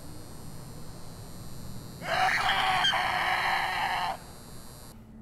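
A man's loud, harsh yell, held for about two seconds from about two seconds in and cutting off abruptly, over a steady hiss of outdoor ambience.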